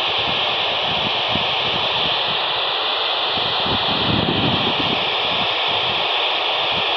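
Steady radio static from a Quansheng handheld receiver with no station coming through, a loud even hiss with a faint steady whistle in it.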